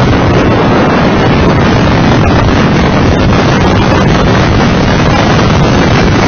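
Loud, steady wind buffeting on the microphone of a Mitsubishi FTO GPX driven at track speed, mixed with the car's engine and road noise.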